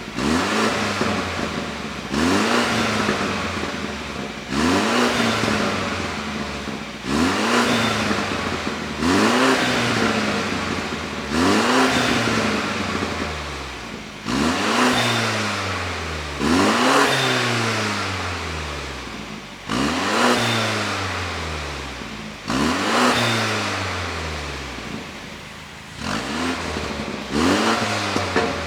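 BMW G30 530i's turbocharged four-cylinder engine revved in about a dozen quick blips, one every two to three seconds. Each rev falls away with crackling pops from the exhaust, produced by an ECU tune set up for exhaust pops.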